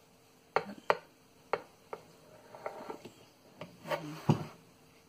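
Knife cutting a slab of soft pandan jelly cake in a glass baking dish: scattered sharp clicks and taps of the blade against the glass, with light rubbing between them and a heavier knock about four seconds in.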